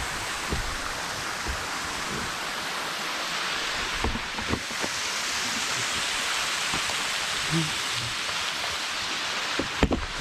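Steady rush of a waterfall's falling water, even and unbroken, with a few faint knocks from climbing gear partway through.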